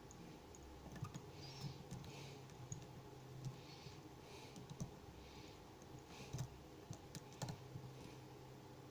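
Faint clicks and short, repeated scrapes of a lock pick working the pins inside a 38mm Smith & Locke aluminium padlock, with the core held in a false set.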